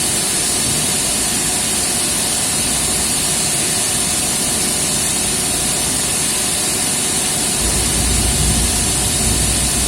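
Three-phase electric motor running in delta connection with a growl, which the title puts down to a shorted winding. A steady hum with a hiss over it, the low rumble getting heavier about eight seconds in.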